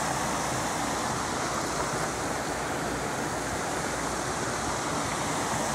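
Steady rushing of flowing floodwater, an even noise that holds without a break.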